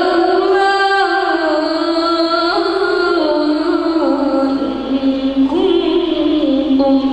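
A boy's solo voice singing through a microphone and PA, holding long notes with slow, ornamented turns in pitch.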